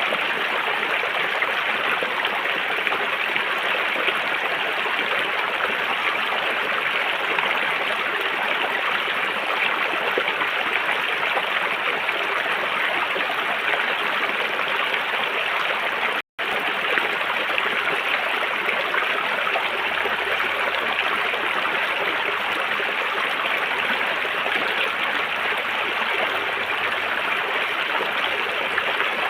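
River water flowing in a steady, even rush, broken once, a little past halfway, by a split-second gap of silence.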